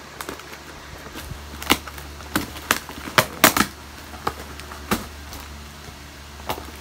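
A parcel's plastic packaging being handled and opened by hand: a run of sharp crackles and snaps, thickest in the middle of the stretch.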